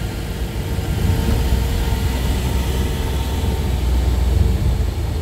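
Car engine and road noise heard inside the cabin while driving: a steady low rumble with a faint steady hum above it.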